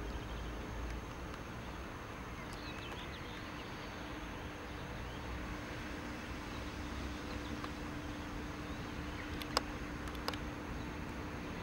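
Distant ex-DR V100-type diesel-hydraulic locomotive running slowly, a steady low rumble with a faint hum. A bird chirps briefly a few seconds in, and two sharp clicks come about a second apart near the end.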